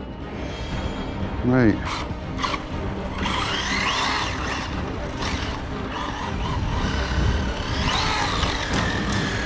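Brushless motor of an Arrma Notorious RC car (SSS 1650 kV motor on a 6S battery) whining as the car is driven: the pitch sweeps up and down as it speeds up and slows, with a long falling whine near the end and a few sharp clicks.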